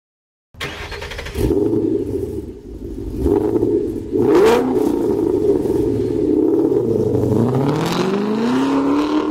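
Car engine running and revving, starting about half a second in, with a few sharp hits along the way and a long rising rev near the end.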